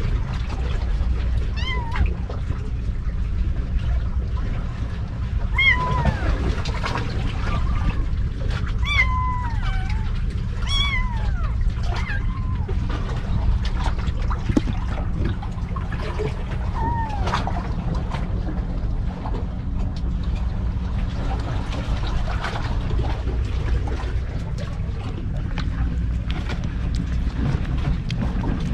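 Stray kittens meowing: about six short, high, thin cries, each falling in pitch, mostly in the first two-thirds. A steady low rumble runs underneath.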